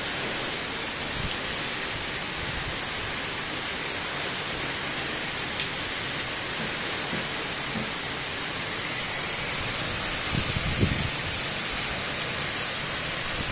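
Heavy tropical rainstorm: downpour pouring steadily as a dense, even hiss. A brief low rumble comes about ten seconds in.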